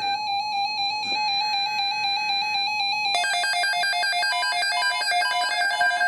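Electronic keyboard music: a held note under quick stepping high notes, turning into a busier run of fast, short notes about three seconds in.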